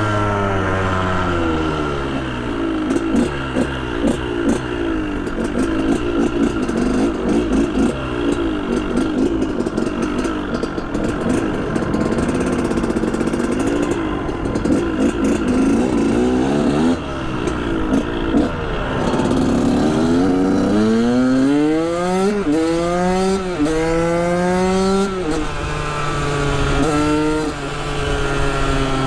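KTM 125 SX two-stroke single-cylinder engine under way, its note wavering around a steady pitch. About two-thirds of the way in it revs hard up through the gears in several rising sweeps, each cut off by a shift, then settles to a steadier note near the end.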